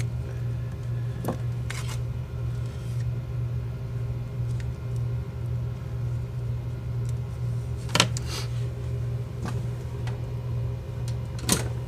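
Parts of an LED ambient light kit being handled: light rustling with a few sharp clicks, the loudest about eight seconds in and near the end, over a steady low hum.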